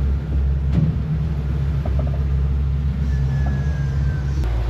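Boat's outboard motor running steadily, a low engine hum, with a slight shift in its tone near the end.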